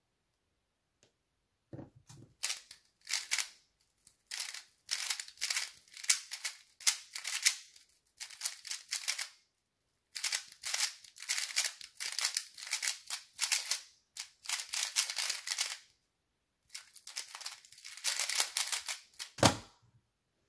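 QiYi MS 3x3 speedcube being turned fast by hand: quick runs of clicking plastic layer turns, broken by a few short pauses. A low thump about two seconds in and another near the end as the solve starts and stops.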